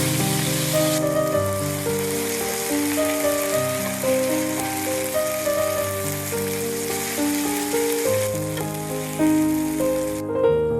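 Background music with a clear melody over food sizzling in a hot pan. The sizzle is strongest in the first second, then carries on more softly and drops out briefly near the end.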